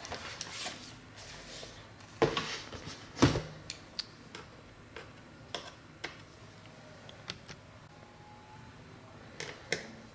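A Dell Inspiron 15 5000-series laptop's case knocks twice against a desk as it is handled and set down, about two and three seconds in. Scattered light clicks and ticks follow as a precision screwdriver works small screws out of the laptop's base.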